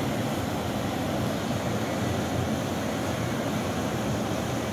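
Muddy floodwater rushing and churning down a concrete wadi channel: a steady, even rush.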